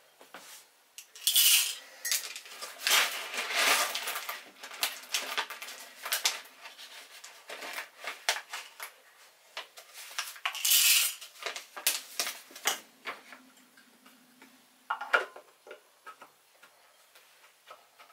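Whole coffee beans being poured into a blade coffee grinder's bowl, rattling and clicking in irregular clusters, with the loudest clatters about a second and a half in, around four seconds and near eleven seconds.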